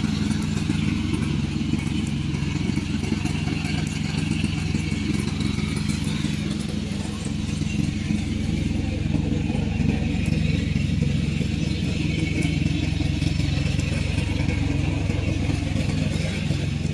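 Engine of a remote-control tracked lawn mower running steadily.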